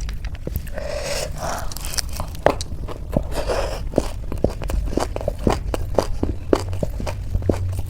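Close-miked crunching and chewing of crisp Indian street snacks, a rapid run of sharp crunches with a few scraping rustles in the first half.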